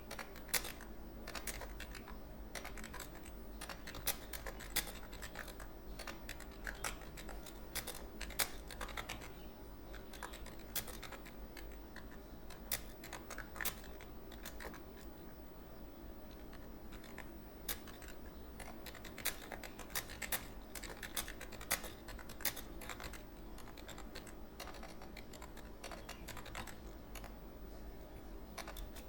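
Typing on a computer keyboard: a continuous, irregular stream of key clicks, with a steady low hum beneath.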